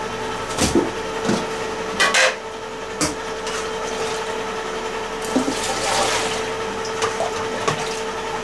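Water being ladled from a pot and poured over pieces of duck in a metal basin to soak them, with several clatters of metal pots and ladle, over a steady hum.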